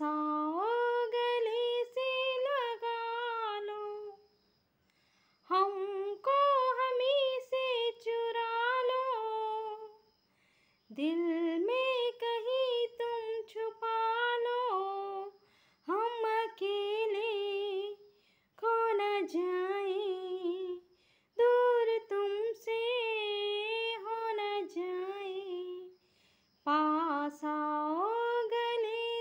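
A woman singing a Hindi film song unaccompanied, in phrases of a few seconds with short silent gaps between them.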